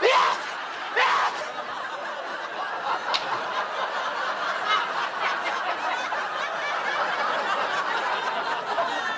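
Studio audience laughing at length, a dense steady spell of laughter. It opens with two short loud bursts from a voice about a second apart.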